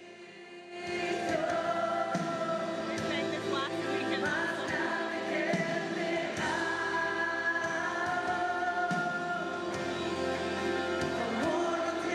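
Background music with a choir singing long held notes, coming in about a second in.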